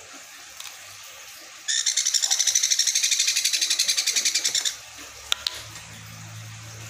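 Baby sun conure giving a food-begging call, a rapid, evenly pulsed, high-pitched chatter lasting about three seconds.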